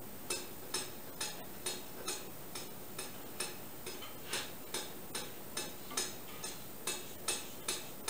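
Sharp, evenly spaced ticking, a little over two ticks a second, over a low steady background.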